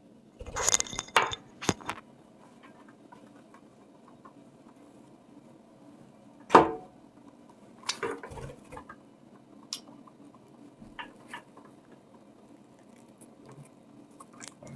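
Scattered clicks, taps and rustles of hands and a small metal tool handling a budgie's wing feathers. There is a quick cluster of sharp sounds about half a second in, the loudest knock just past the middle, and lighter ticks after it.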